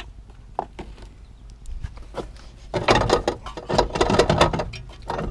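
A run of loud metal clunks and rattles, from about three seconds in to nearly five, as the loosened front strut and suspension parts are handled and shifted in the wheel well. A few light clicks come before it.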